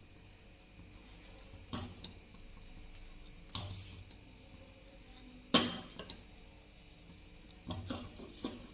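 Steel ladle clinking and scraping against a stainless-steel pot while stirring custard as it cooks on the stove. A handful of separate clinks, the loudest a little past halfway, with quiet stirring between.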